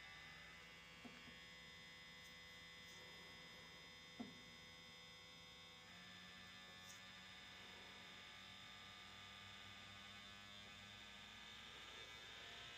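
Faint steady hum of the small pump in a manometer's pressure-switch tester, drawing pressure on a furnace's low pressure switch; its tone shifts slightly about halfway through. Two light clicks come at about one and four seconds in.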